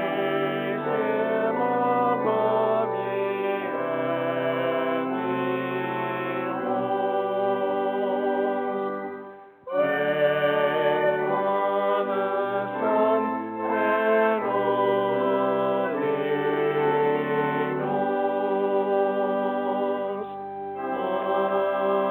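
Music of held, sustained chords played in phrases, with a short break about nine and a half seconds in.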